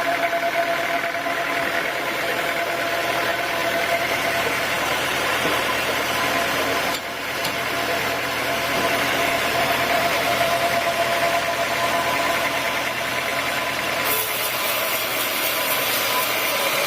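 Sawmill machinery running steadily with a constant hum; it dips briefly about seven seconds in, and near the end a higher hiss joins in.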